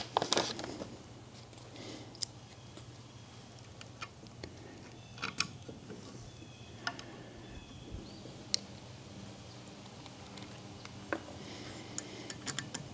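Plastic bag crinkling briefly at the start, then faint, scattered small clicks and taps as hands fit Allen head bolts and a hex key into a steel chute-blocker bracket, over a low steady hum.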